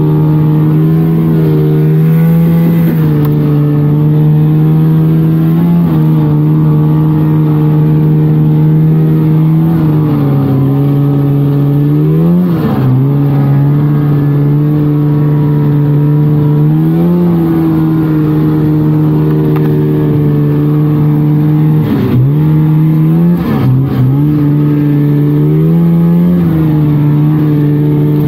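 1999 Polaris trail snowmobile's two-stroke engine running steadily under way. The throttle is eased and reopened about halfway through and twice near the end, so the pitch dips briefly and climbs back.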